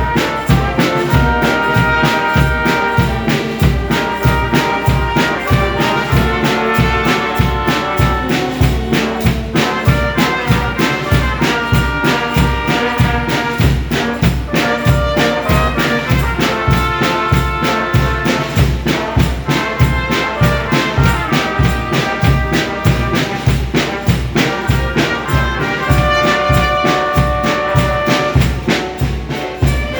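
Brass band music: trumpets and trombones playing held melody notes over a steady bass-drum beat, about two beats a second.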